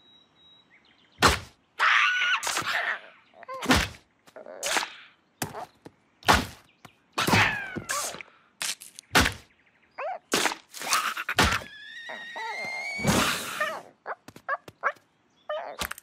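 Cartoon slapstick sound effects: a run of sharp thunks, one every two to three seconds, with squeaky, sliding cartoon voice sounds in between.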